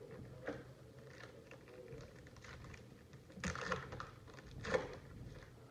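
Trading cards and a foil card-pack wrapper being handled by hand: soft clicks and rustles of cards, with two louder crinkling rustles a little past halfway.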